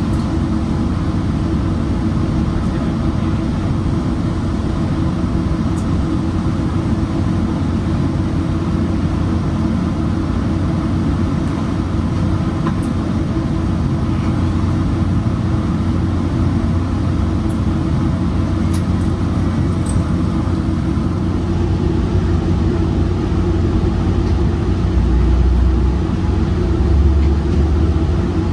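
Steady low rumble and hum of a Metrolink commuter train hauled by an EMD F59PH diesel locomotive, heard from on board, with two louder low surges near the end.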